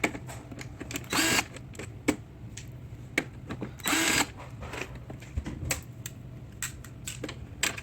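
Plastic housing parts of an HP printer being handled and pried off: scattered clicks and knocks, with two brief scraping rasps about a second and four seconds in.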